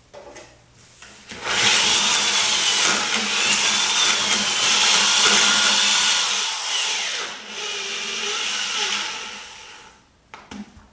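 Corded drill with a paddle mixer churning mortar in a plastic bucket. The motor starts about a second and a half in, runs with a wavering whine, drops a little in the last few seconds and then stops.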